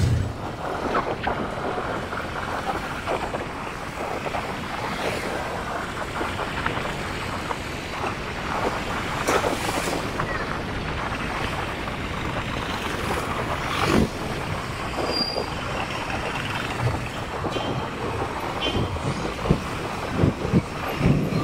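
Ride noise from a moving motor vehicle on a city street: a steady rumble with wind on the microphone and scattered rattles and knocks, the loudest knock about fourteen seconds in.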